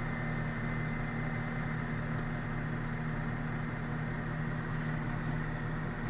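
Combine harvester running steadily while unloading shelled corn through its auger into a gravity wagon, heard from inside the cab as an even drone with a faint steady whine.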